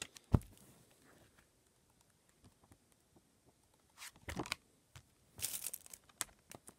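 Pages of a paperback picture book being handled and flipped: a single thump just after the start, then two bursts of paper rustling as pages are riffled in the second half, with a few light clicks.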